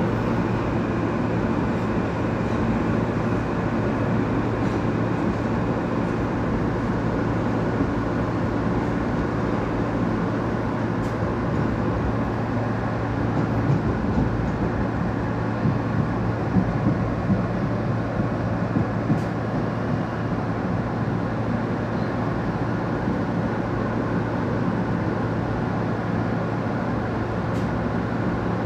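Inside an R160 subway car while the train runs: a steady rumble of wheels on rail under a constant low hum. About halfway through, a handful of sharp clicks and knocks come in as the wheels pass over track joints.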